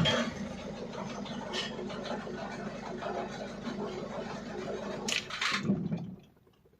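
Mercedes-Benz OM611 2.2 four-cylinder diesel engine in a Sprinter idling steadily, with a couple of short clicks; the sound cuts off suddenly near the end.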